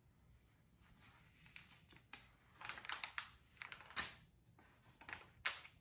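Paper pages of a picture book being turned and handled: a run of short, soft rustles and flicks, strongest about halfway through and again near the end.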